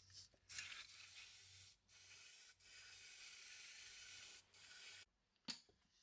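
Aerosol brake cleaner sprayed onto a motorcycle's rear brake caliper, a faint hiss in about four bursts with short breaks between them.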